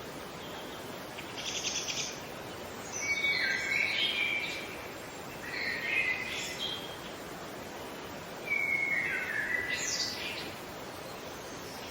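A bird singing short, high, warbling song phrases, four of them a couple of seconds apart, over a steady background hiss.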